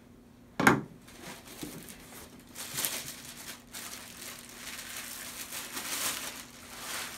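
A single thump about a second in, then a thin plastic bag crinkling and rustling for several seconds as a cordless impact driver is unwrapped from it.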